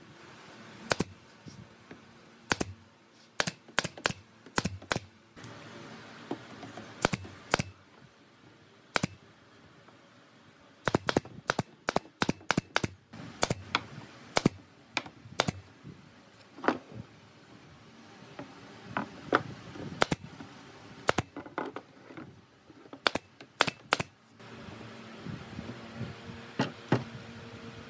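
Pneumatic nail gun firing nail after nail into wooden edge trim: sharp cracks at irregular spacing, sometimes two or three in quick succession. The shots stop a few seconds before the end, leaving a low steady hum.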